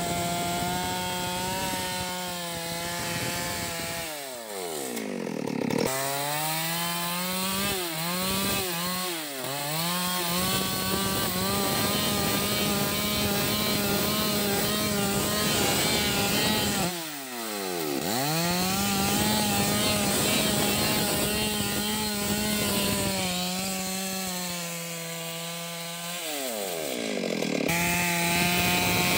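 Stihl MS 382 two-stroke chainsaw at high revs, ripping lengthwise through a red sandalwood log. The engine holds a steady high note while cutting, and the throttle is eased off and opened again about four times, the pitch dropping and climbing back each time.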